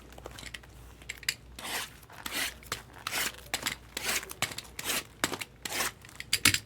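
Plastic shrink-wrap being cut and torn off sealed trading-card boxes: a string of irregular ripping and crinkling noises with a few sharp clicks.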